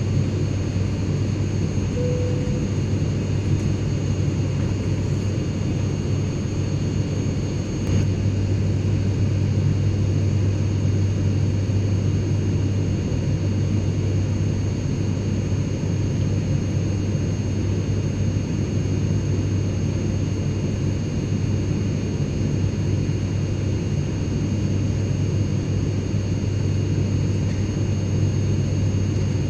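Steady airplane cabin noise in flight: an even, unbroken drone with a strong low hum and faint high whines above it.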